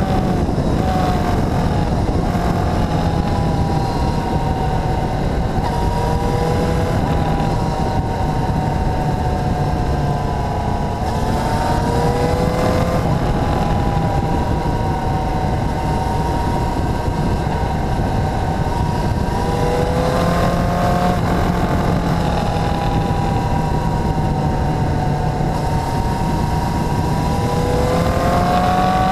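Motorcycle engine running under way, its note rising and falling with the throttle several times and climbing again near the end, over a steady rush of noise.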